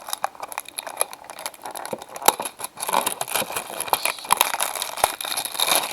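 Trading card box being opened by hand: a wrapper crinkling and tearing, with many small irregular clicks and rustles.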